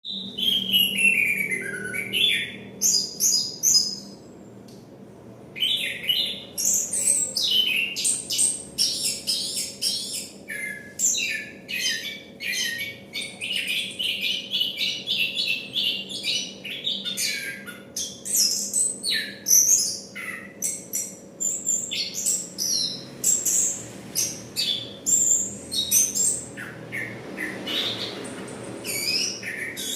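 Chestnut-capped thrush (anis kembang) singing continuously ('ngerol'): a long run of rapid, varied whistled phrases and descending notes, broken by a short pause about four seconds in, over a faint steady hum.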